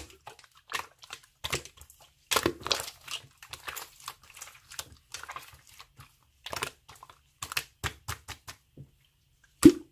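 Slime being squeezed and pressed by hand, giving an uneven run of sticky clicks, crackles and air-bubble pops, with the loudest pop near the end.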